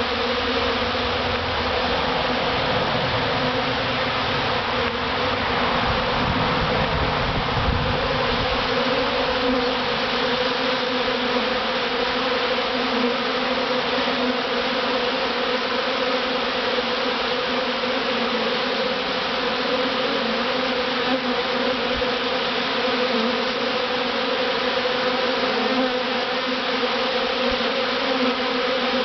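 Dense, steady buzzing of a large honeybee swarm close to the microphone, the many wings blending into one even hum.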